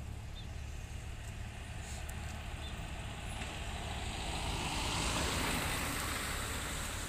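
A car drives past, its tyre and engine noise swelling to a peak about five seconds in and then fading, over a steady low rumble.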